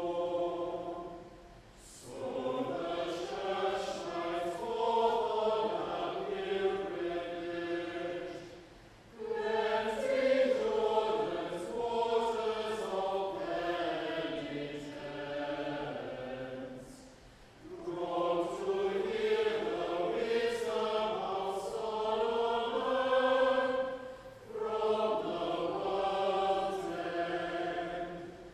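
Choir singing sacred church music in long phrases, with short pauses between them.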